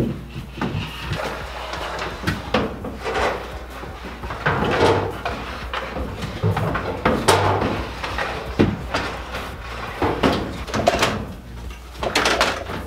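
Wooden doghouse frame of pine lumber being wrestled through a doorway: irregular knocks, bumps and short scrapes of wood against the door frame and floor.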